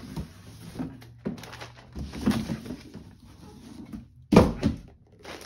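Cardboard box and paper wrapping rustling and scraping as a paper-wrapped drum throne part is lifted out of its box, with one loud thump about four seconds in.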